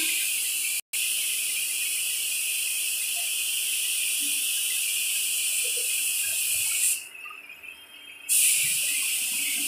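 Air spray gun hissing steadily as it sprays PU matt polish onto wood. Near the end the spray stops for about a second and a half, then starts again.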